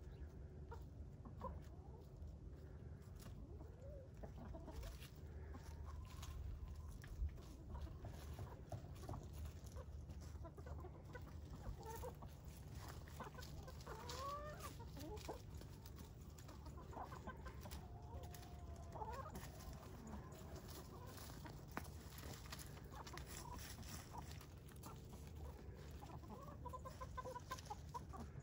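A small flock of backyard hens clucking and giving short, scattered calls, some rising and some falling in pitch, as they explore. A steady low hum runs underneath.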